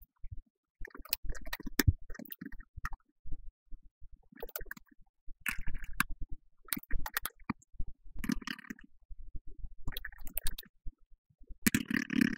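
Typing on a keyboard: irregular runs of key clicks broken by short pauses.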